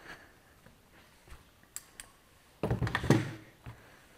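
Light clicks of handling, then a short loud clatter about two and a half seconds in, as the camera and parts are moved about on a metal workbench.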